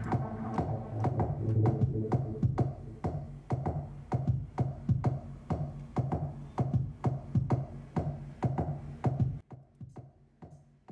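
Electronic background music with a steady drum-machine beat over held synthesizer bass notes. It stops abruptly about nine seconds in.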